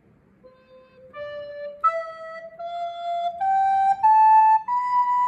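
Plastic soprano recorder playing an ascending C major scale, one tongued note after another, each held about two-thirds of a second, climbing from low C to B.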